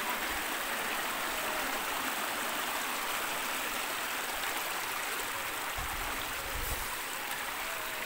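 Steady rushing of running water from a mountain stream. A brief low rumble comes in about six seconds in.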